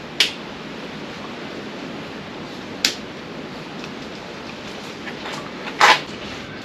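A few sharp clicks and knocks from parts and tools being handled while checking the ATV's dead electrics: one near the start, one about three seconds in, and a louder one near the end, over a steady background hiss.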